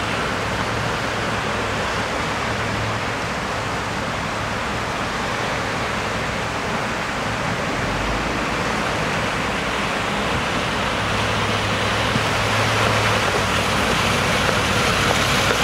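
A steady rushing noise with a faint low hum underneath, growing a little louder near the end and then stopping abruptly.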